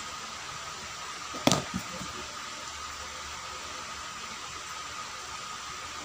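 Steady whir of an electric fan. One sharp knock comes about a second and a half in, followed by a couple of softer taps.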